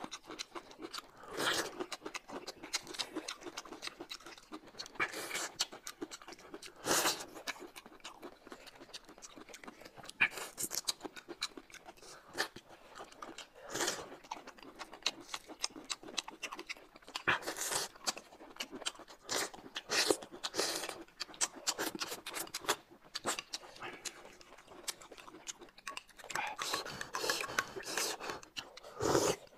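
Close-up eating sounds from two people: chewing and biting on peeled bamboo shoots, then spoons scraping and tapping in glass cups of a yellow soup, heard as irregular sharp clicks and smacks.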